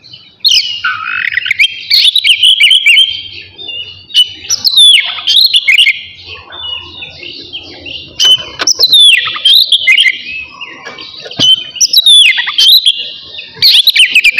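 Oriental magpie-robin (kacer) singing loudly, in phrases of rapid whistles and sweeping, slurred notes that start and stop every couple of seconds.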